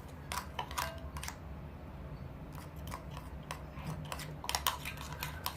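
Scattered light clicks and taps of slime-making utensils and containers being handled, in irregular clusters over a low steady hum.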